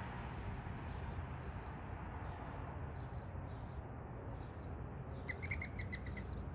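Backyard birds calling over a steady low background rumble: faint scattered chirps, then about five seconds in a quick run of about seven sharp, evenly spaced call notes lasting about a second.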